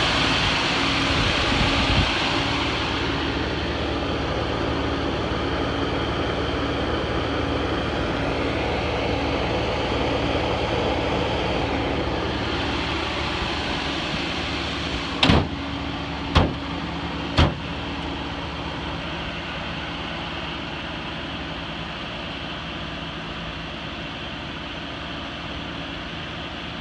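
1979 Chevrolet Malibu Classic's 305 V8 idling steadily, growing gradually quieter. Three sharp knocks about a second apart come about halfway through.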